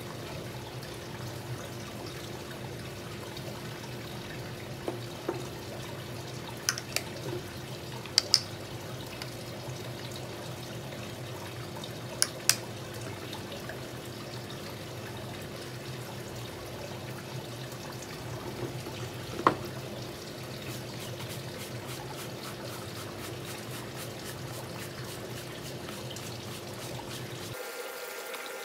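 Steady faint trickling, water-like background with a low hum. It is broken by a few sharp taps as a bowl of water and a brush are handled on a concrete surface. Near the end comes a fast run of light ticks.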